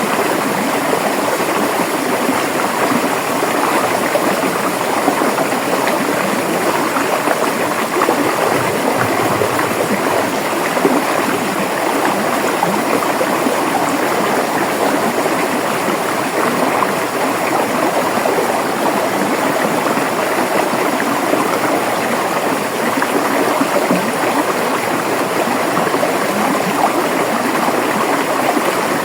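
River water rushing and burbling over rocks, a steady, dense wash of flowing water without pause.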